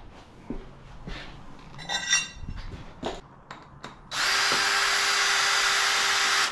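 A few light clicks and knocks of tools on the engine. About four seconds in, a power drill starts and runs at a steady speed for about two and a half seconds, backing a bolt out of the Suzuki DR200's top end.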